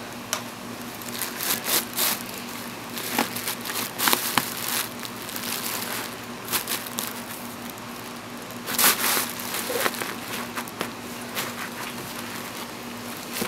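Plastic bubble wrap crinkling and crackling in short, irregular bursts as a cat shifts about inside it, loudest about 2 s and 9 s in, over a faint steady hum.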